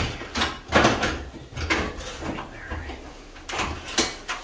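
Scattered bumps and knocks with scuffing and rustling as a person climbs out of a bare-metal 1953 Chevy truck cab through the door opening, body and clothes brushing and knocking against the cab's sheet metal and door.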